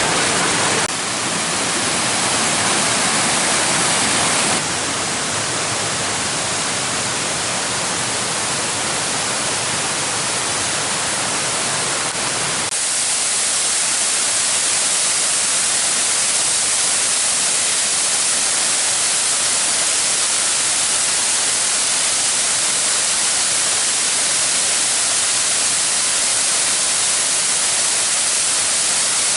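Rushing water of a waterfall: a steady, loud hiss with no tone in it, which jumps abruptly in level and colour about one, five and thirteen seconds in.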